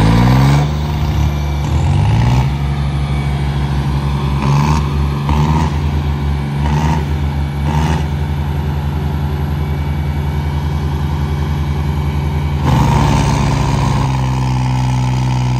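Tractor diesel engine revved hard, pitch climbing at the start and again about two seconds in, with several short throttle blips around the middle and another rev-up near the end, running steadily in between; black exhaust smoke shows it is under heavy throttle.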